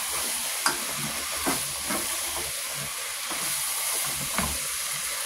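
Pot of meat and tomatoes sizzling on the stove, a steady hiss with a few light knocks scattered through it.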